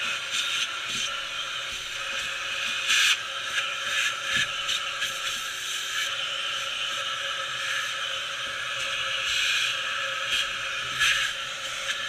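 Vacuum hose running with a steady hiss as its nozzle sucks machining chips off a CNC mill's vise and table, with chips clicking and rattling up the hose now and then, loudest about three seconds in and near the end.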